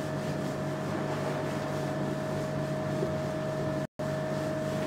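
Steady room hum, machine-like, with one constant mid-pitched tone over a low hum and faint hiss. It cuts out completely for an instant about four seconds in.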